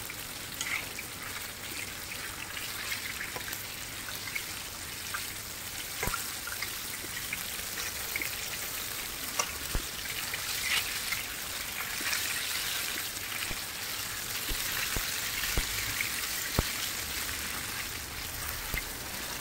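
Batter-coated tomato slices (tomato bhajia) deep-frying in a large kadhai of hot oil: a steady sizzling crackle with a few sharp clicks, the first half-fry before the final frying.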